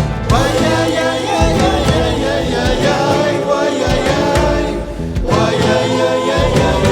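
Andean folk music played by an ensemble with singing voices, with a short drop in level about five seconds in.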